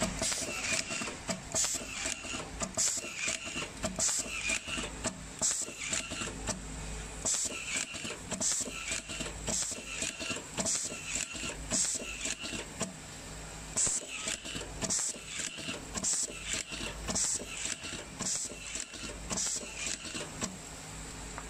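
Automatic handheld nylon cable-tie gun firing tie after tie around a wire bundle: a quick string of sharp clicks and short whirs, roughly one or two a second, in runs with brief pauses. Under it the tie machine's feeder keeps up a steady hum.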